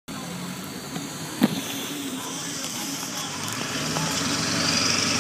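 Car engine and road noise, growing louder toward the end, with a sharp click about a second and a half in.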